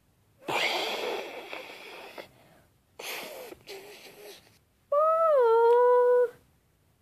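Vocal sound effects made by mouth: two breathy, hissing whooshes, then a held buzzy note that dips in pitch and then holds steady for about a second and a half.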